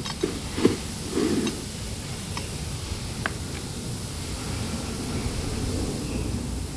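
Steady background hiss with a few light clicks and knocks from parts being handled, the sharpest just over half a second in.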